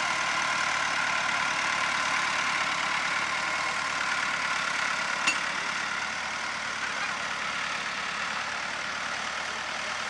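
Massey Ferguson 375 tractor's diesel engine running steadily as it pulls a mounted plough through the soil, with one sharp click about five seconds in.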